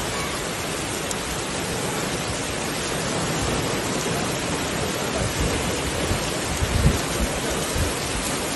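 Heavy rain falling steadily, a dense hiss, with a few short low thumps in the second half.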